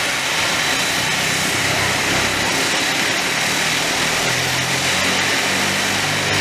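Bombardier Dash 8 Q400's Pratt & Whitney PW150A turboprop engine starting up with its propeller turning: a steady rushing hiss with a thin high whine over it, and a low propeller hum coming in about four seconds in.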